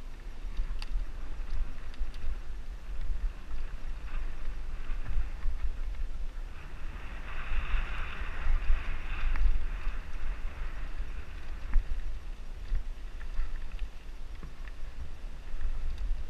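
Mountain bike ridden fast over dirt singletrack, heard from a camera on the bike or rider: a constant wind rumble on the microphone, tyres rolling on dirt, and the bike's knocks and rattles over roots and bumps. A rushing hiss rises for a few seconds about halfway through.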